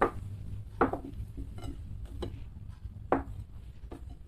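Ceramic plates being lifted and set back down on a table as they are shuffled: about five knocks and clatters, roughly one a second.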